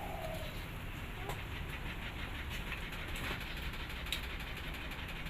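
Pork neck grilling over a low fire, with scattered small crackles and pops from the meat and coals over a steady low rumble.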